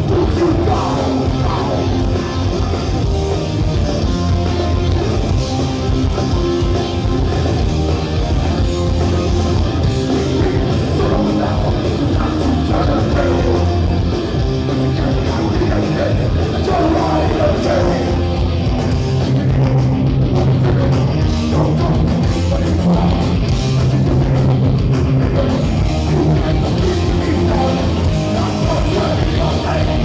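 Oi! punk band playing live: distorted electric guitars, bass and drum kit, with a lead singer's vocals over them.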